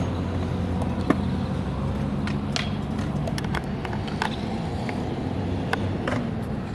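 Skateboard rolling on concrete with a steady low rumble, broken by a dozen or so sharp clicks and knocks.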